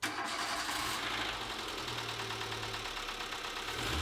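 Renault D4F 1.2 petrol four-cylinder engine idling steadily with a knocking running through it. The knock persists with the cleaned spark plugs refitted; the owner suspects cylinder 2, which tested low on compression and had a dodgy spark plug.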